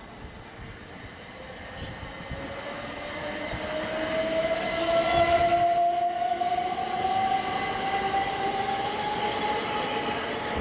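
Class 377 Electrostar electric multiple unit running through the station without stopping. Its traction equipment gives a whine that rises slowly and steadily in pitch, over the rumble of the wheels on the rails, and the sound is loudest about five seconds in as the carriages pass close by.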